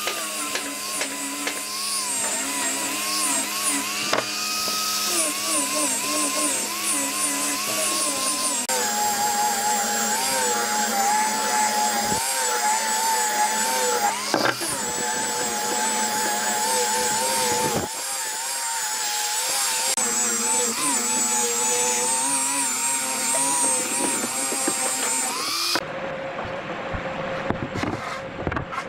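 Handheld angle grinder with a sanding disc sanding a curved wooden table leg, its motor whine wavering up and down in pitch as the disc is pressed into the wood. The grinder stops near the end.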